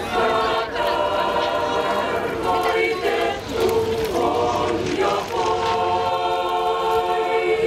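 A choir singing in long held notes, phrase after phrase with short breaks between them.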